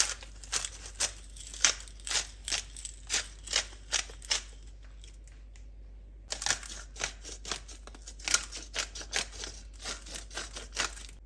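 Sharp crinkling crackles of plastic handled by gloved hands, about two or three a second. They come in two runs with a pause of about two seconds in the middle.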